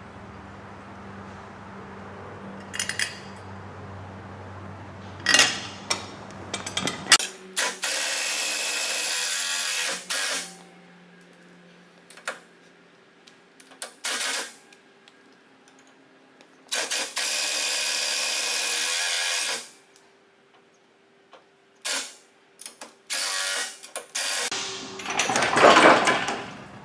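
Impact driver driving 1/4-14 by 1 inch self-tapping screws into a metal bracket: two runs of about three seconds each, with short bursts and clicks between them as it zips the screws in tight.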